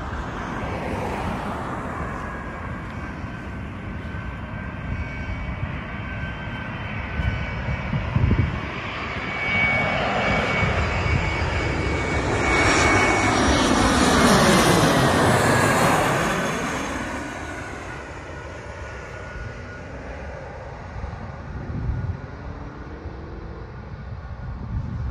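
Jet airliner on final approach passing low overhead: the engine noise and a high whine build to their loudest about fifteen seconds in, the whine drops in pitch as it passes, then the sound fades away.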